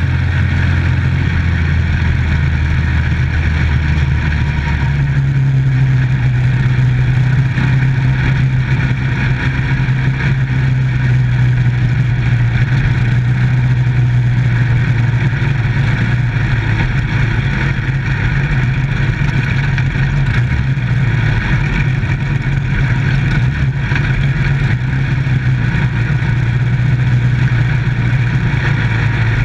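Dirt-track micro stock race car's engine running hard on the track, heard from inside the car, its note stepping up in pitch about five seconds in and then holding steady.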